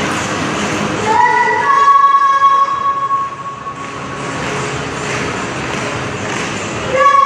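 A horn-like pitched tone sounds for about two seconds, starting about a second in, then again just before the end, over a loud background of noise.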